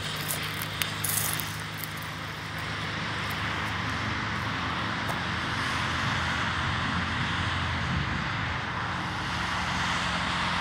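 Steady rush of highway traffic: tyre and engine noise of cars passing on a multi-lane road, with a few sharp clicks in the first second or so.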